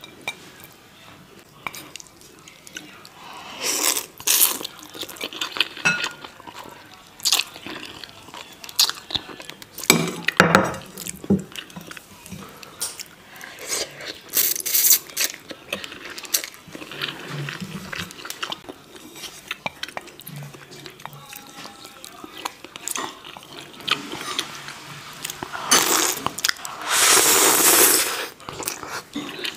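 Close-miked eating of instant ramen: noodles slurped in several wet bursts, the longest lasting about two seconds near the end, with chewing and short clicks of chopsticks against the glass bowl and plate in between.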